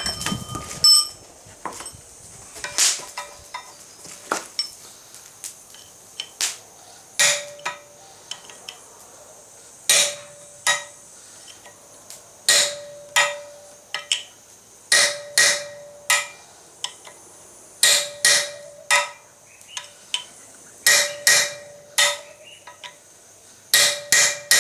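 Hammer driving a hand-made punch through hot flat steel bar on an anvil: many sharp metallic strikes in groups of two or three with short pauses between, most leaving a brief ringing tone.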